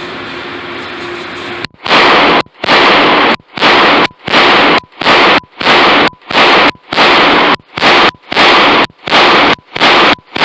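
Walther PPQ pistol fired in rapid succession, about a dozen shots at a steady pace of roughly one and a half a second, each one echoing through the indoor range. The shots overload the recording, which cuts out briefly between them.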